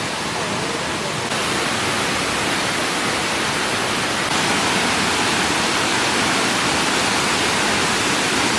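Steady rush of falling water from the Kuang Si Falls cascades, stepping up a little louder about a second in and again about four seconds in.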